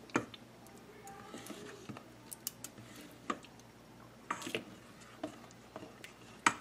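A spoon stirring thick cornmeal porridge in a stainless steel pot: irregular soft scrapes and light knocks against the pot, a few clustered strokes about four and a half seconds in.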